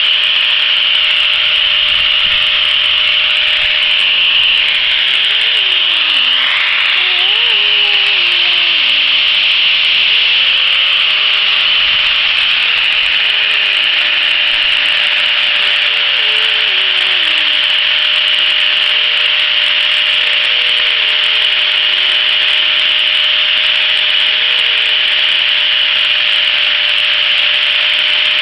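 Angle grinder with a flap disc running steadily while sanding a purpleheart wood handle: a continuous, even hiss of abrasion over the motor's steady whine.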